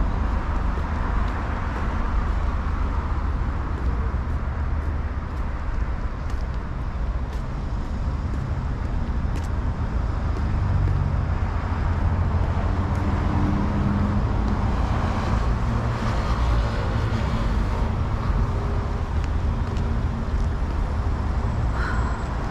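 Steady road traffic on a multi-lane city street: a continuous low rumble of car engines and tyres, with one vehicle's engine hum swelling about halfway through.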